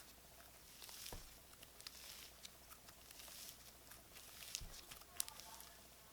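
Slime being squished and poked by hand, with faint sticky crackles and a few small clicks and pops.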